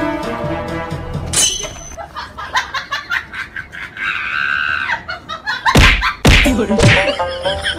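A scuffle scored with comic effects over background music: a shrill cry about four seconds in, two heavy thuds a little before six seconds, and laughter near the end.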